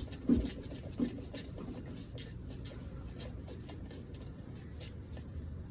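A quarter-inch drive ratchet clicking as a small wheel cylinder mounting bolt is turned out, a series of light clicks a few a second, with a couple of dull knocks in the first second.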